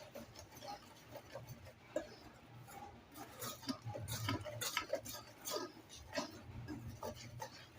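A utensil stirring dry flour, baking soda and baking powder in a mixing bowl: light, irregular clicks and scrapes against the bowl, busier from about three seconds in.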